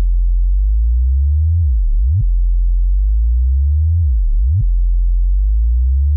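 Very deep synthesized bass tone for a subwoofer test, held steady on low notes and twice swooping sharply down in pitch and back up, about two seconds apart.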